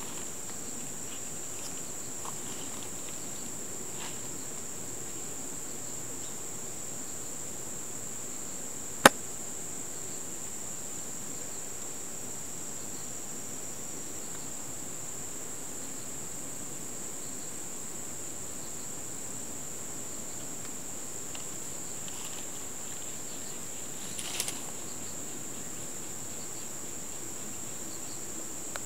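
Insects chirring steadily as a high-pitched drone, with one sharp click about nine seconds in and a few faint clicks later on.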